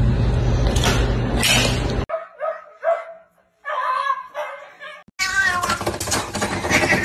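For about two seconds a loud, steady rattle from a cat's food bowl scraped about on a tile floor. Then a cat yowls in a string of short calls, and a cat meows again near the end.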